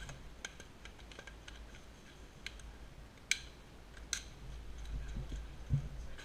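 Scattered sharp clicks and ticks, the two loudest a little under a second apart around the middle, with a dull thump near the end.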